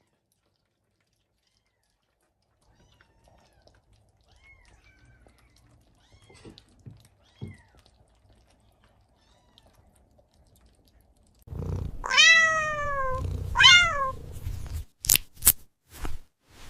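A domestic cat meows loudly twice, each meow falling in pitch. A few sharp clicks follow.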